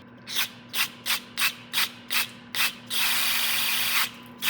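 Aerosol carburetor cleaner sprayed through a straw into the carburetor's small passages: a quick series of short spray bursts, about three a second, then one continuous spray lasting about a second near the end.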